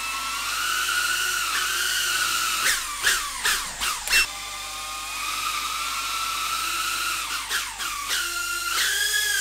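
Brushless motors and propellers of a tiny Emax Tinyhawk II FPV whoop drone whining as it hovers low. The pitch swings sharply up and down with quick throttle changes, once about three to four seconds in and again near the end.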